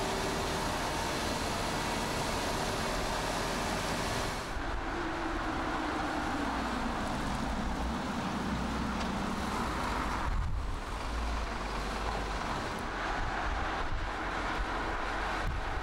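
Volkswagen CrossTouran driving on the road: steady engine and tyre noise with wind. Midway through, a hum slowly falls in pitch. The sound changes abruptly about four seconds in and again about ten and a half seconds in.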